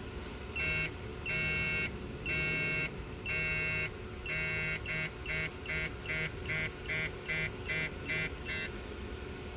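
Electronic beeping from a digital torque wrench set to 20 lb-ft as a spark plug is tightened. About a dozen beeps of one steady pitch: the first few are long, then they come shorter and quicker until they stop near the end, signalling that the set torque has been reached.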